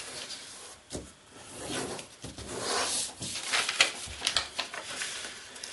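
Large sheet of silver and gold kraft paper rustling and crinkling as it is folded and creased flat by hand, with a few short sharp crackles.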